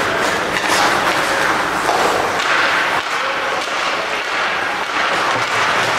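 Steady crowd noise in an ice hockey arena during play: a dense wash of many voices at a constant level.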